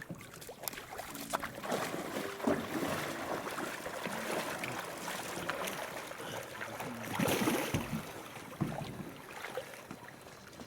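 Water splashing and sloshing in irregular bursts, with faint voices in the background.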